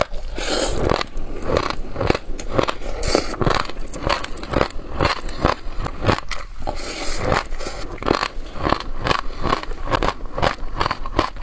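Sesame seeds being chewed: an irregular, steady run of small crackles and crunches, several a second.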